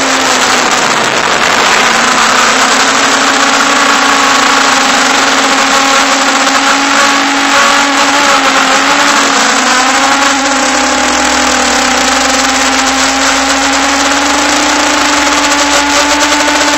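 MJX Bugs 5W quadcopter's brushless motors and propellers whining steadily in flight, heard close up from the camera mounted on the drone, with a hiss of rushing air. The pitch dips a little about halfway through and then settles again.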